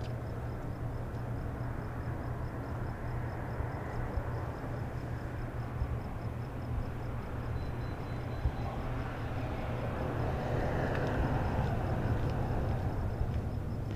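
City street ambience at night: a steady low traffic hum, with a vehicle passing that swells and then fades in the second half.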